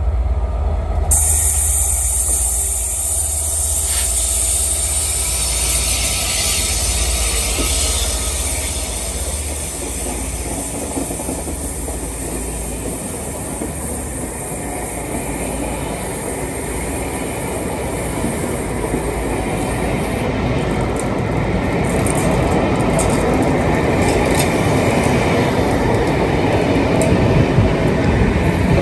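Class 67 diesel locomotive and its train of coaches passing at speed. There is a low engine rumble in the first few seconds, then a long steady rush of wheels on the rails with a high hiss. In the later part come rapid clicks as the coach wheels cross rail joints.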